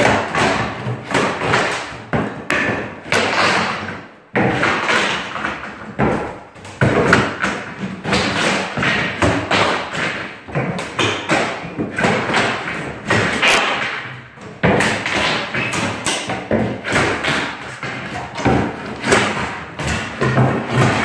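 Steel demolition fork ramming through and prying up heart pine floorboards: a fast, continuous run of heavy thuds and knocks of steel on wood.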